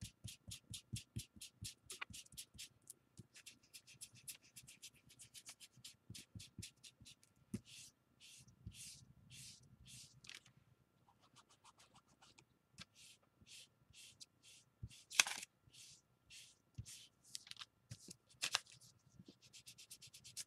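Quick scratching strokes over a thin, old book page as it is rubbed to distress it, about five strokes a second at first, then slower, with two louder scrapes in the second half.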